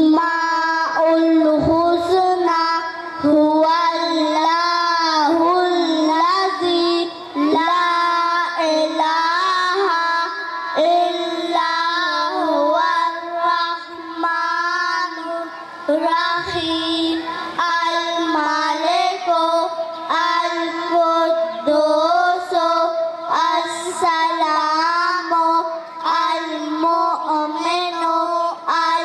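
A young girl singing a naat solo in long, held, ornamented melodic lines.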